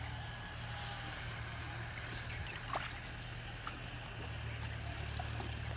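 Faint outdoor ambience: a steady low rumble, a few short chirps and a single sharp click a little under three seconds in.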